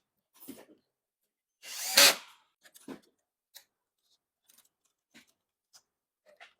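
A brief burst from an electric screwdriver about two seconds in, surrounded by scattered small clicks and knocks of parts being handled.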